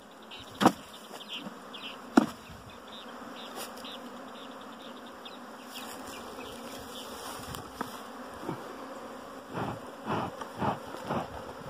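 A disturbed, defensive honeybee colony buzzing steadily as it is worked. Two sharp knocks come about a second and two seconds in, and a run of knocks comes near the end.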